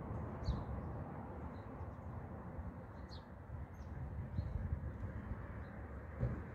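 Small birds giving short, high chirps now and then, about six in all, over a steady low outdoor rumble.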